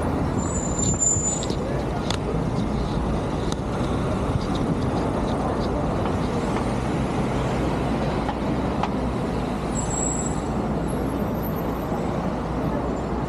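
Busy city-street traffic: a steady rumble of passing cars, vans, taxis and buses, with a couple of brief high squeals, about a second in and again near the end.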